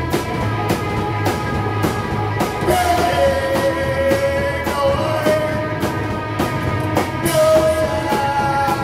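Live rock band playing loud: drum kit keeping a steady beat of about three hits a second under held guitar and amplified notes that shift pitch every couple of seconds.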